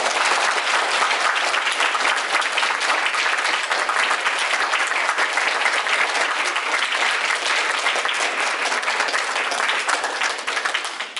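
A small audience applauding with sustained hand clapping that fades near the end.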